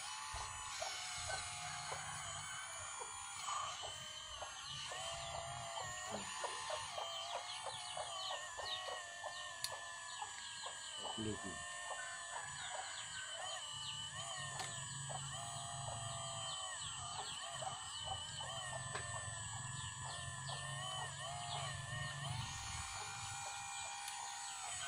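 Hydraulic pump and valves of a radio-controlled Kobelco SK200 excavator model whining while it digs and swings. The pitch steps and bends up and down as the boom, arm and bucket move.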